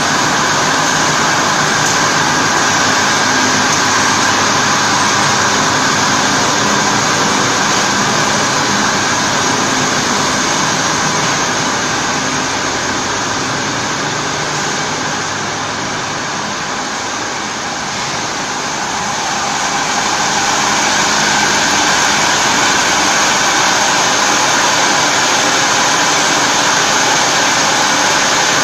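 Gauze drying machine running: a steady mechanical hum and hiss from its electric drive motors and rollers, with a steady high whine on top. It eases off a little for a few seconds in the middle.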